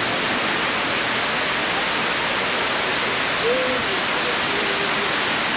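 Loud, steady rushing noise, even and unbroken, with a faint voice briefly about halfway through.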